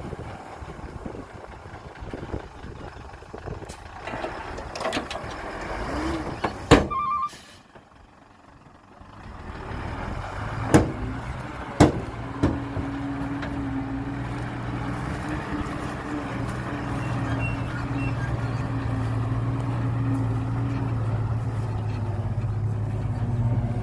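Dump truck engine running, settling into a steady low hum for the second half. Before that comes rough rumbling with several sharp knocks, a quick run of short beeps about seven seconds in, and a brief lull.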